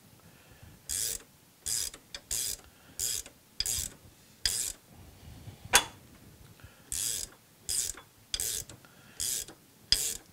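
Socket ratchet wrench clicking in short repeated bursts, roughly one every two-thirds of a second, as it turns a threading die onto a 3/16 in steel rod. A single sharper click comes about halfway through.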